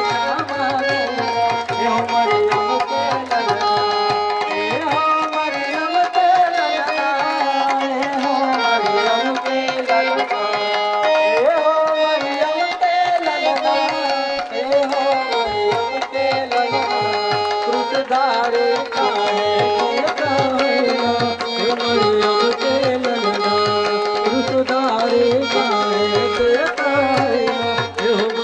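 Instrumental break in a Hindi worship song: a held, gliding melody line over a steady hand-drum rhythm, with no singing.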